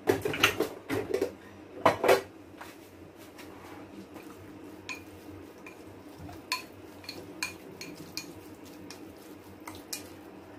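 A utensil clattering and clinking against a bowl while mixing pork strips in their marinade. It starts with a burst of loud knocks in the first two seconds, then goes on as lighter, scattered clinks.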